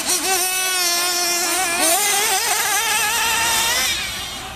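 Nitro-engined RC truggy racing on a dirt track: its small glow-fuel engine whines at high revs, the pitch dipping and climbing again as the throttle is eased and opened, fading about four seconds in.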